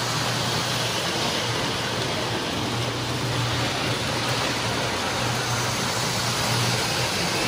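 Several Lionel three-rail O-gauge toy trains running on a layout: a steady rolling rumble of wheels on metal track, with a low hum that swells and fades every second or two.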